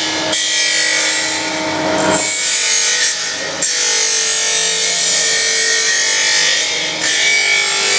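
Surface grinder's abrasive wheel grinding a flat steel workpiece on automatic feed: a steady, loud grinding rasp over the hum of the wheel motor. The sound shifts every couple of seconds as the table carries the work back and forth under the wheel.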